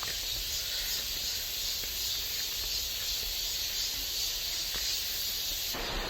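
Steady high-pitched outdoor hiss with a few faint ticks. Near the end it switches abruptly to a louder, fuller rushing noise like a stream.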